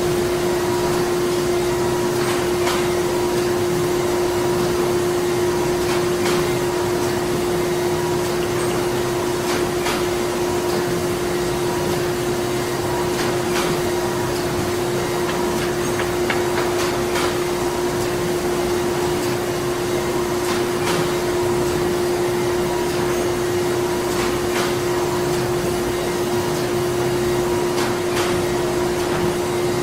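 Printing-plant machinery running steadily: a constant mechanical hum with one strong droning tone, a fainter higher tone that comes and goes, and irregular light clicks and ticks.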